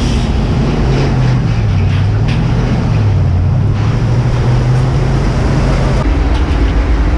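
Fire engine's aerial ladder being raised: the truck's engine runs the ladder's hydraulics with a steady low hum whose pitch wavers and then steps up about six seconds in.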